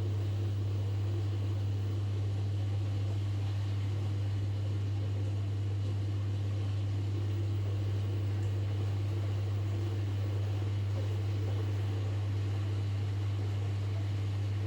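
Washing machine running: a steady low hum with a fainter even whir above it.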